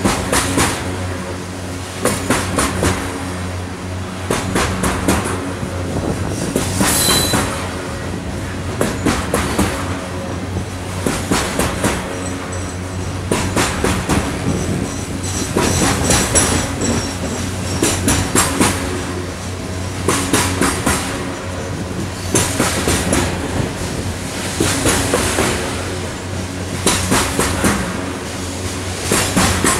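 Freight train of open-top hopper cars rolling past close by, the wheels clacking over the rail in quick clusters of clicks about every two seconds over a steady rolling rumble. A faint high wheel squeal comes in around the middle.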